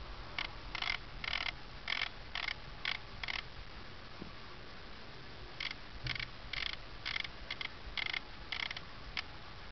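Contax G2 film camera being worked by hand as its dial is turned: two runs of short mechanical sounds, about two a second, with a pause of about two seconds between the runs.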